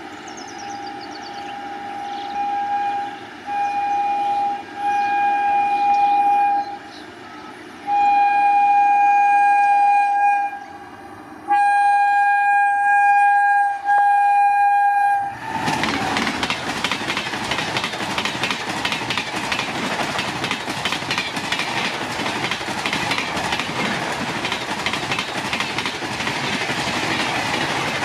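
Electric locomotive horn sounding a series of single-tone blasts, about seven of them, as trains approach. About 15 seconds in, a passenger train starts passing close at high speed, about 133 km/h: a loud, steady rush of wheels and coaches with rapid clickety-clack over the rails.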